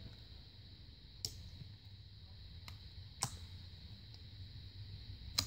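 Slime being kneaded by hand, giving a few sharp, separate clicks and pops as air pockets in the stiff slime burst.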